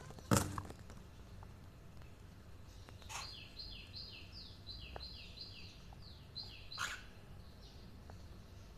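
A bird chirping: a quick run of about a dozen short, falling high notes lasting about three and a half seconds, starting about three seconds in. A sharp click a moment after the start is the loudest sound, with fainter clicks around three and seven seconds.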